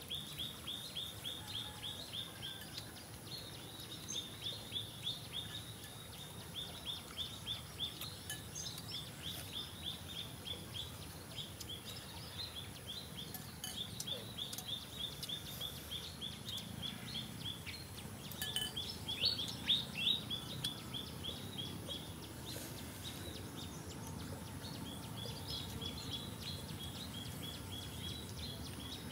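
Forest ambience: a fast, steady series of short high chirps, several a second, over a faint high steady hum, with a few louder falling calls about two-thirds of the way through.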